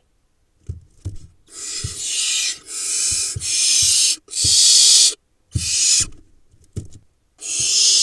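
Barn owl nestlings giving harsh hissing screeches, about six in a row, each half a second to a second long. Short dull thumps come with them as the owlets scramble over each other on the nest-box floor.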